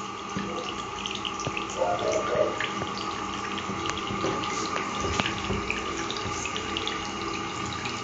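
Water running steadily from a tap, with small clicks and rustles over it.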